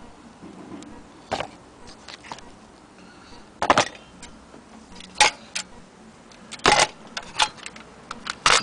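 Small metal parts of a miniature child's sewing machine clacking and clinking as it is handled and turned over: several irregular sharp clacks.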